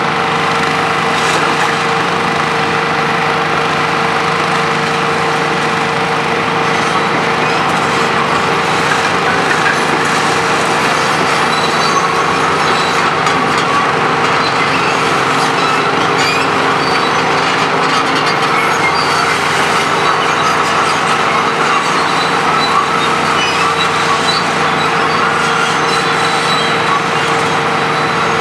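Demolition excavators, including a Hitachi ZX 470-3 high-reach, running steadily: diesel engine and hydraulic pumps under load with a steady whine, and faint scattered ticks through the middle.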